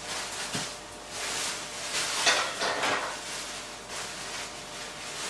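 Rustling and light clatter of kitchen items being handled, in several short passages, loudest about two to three seconds in.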